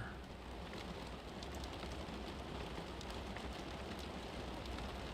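Soft, steady rain with faint scattered drop ticks, a low, even hiss.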